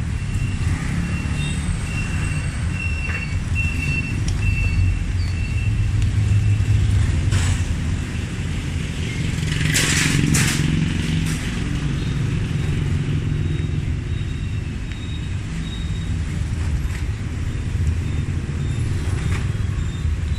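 Road traffic, mostly motorbikes and cars, as a steady low rumble, with a couple of sharp clicks or knocks about ten seconds in.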